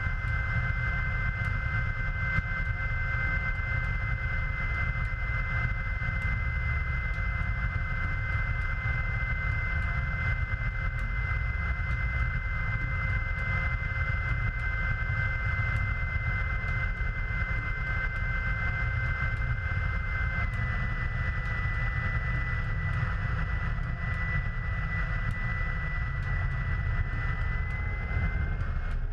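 GreenWing eSpyder's electric motor and propeller running under power, with steady high whining tones over heavy wind rumble on the microphone. About two-thirds through, one of the tones drops out, and near the end another rises slightly, as power changes during the approach and landing.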